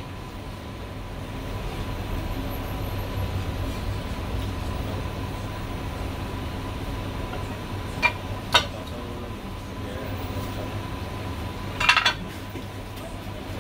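Steel cleaver knocking on a wooden chopping block: two sharp knocks about half a second apart past the middle, then a short cluster of clatters near the end as the cleaver blade scrapes and lifts sliced goose off the block. A steady background hum runs underneath.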